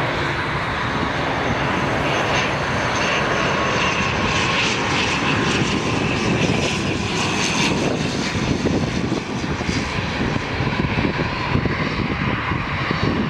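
ATR 72-600 twin-turboprop airliner on final approach, its two Pratt & Whitney PW127M engines and propellers running steadily as it flies low past.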